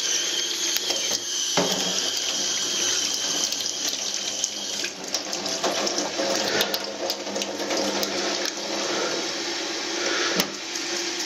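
Kitchen tap running steadily into a stainless steel sink, the stream splashing over hands and a flannel coffee-drip filter as it is rinsed and wrung out.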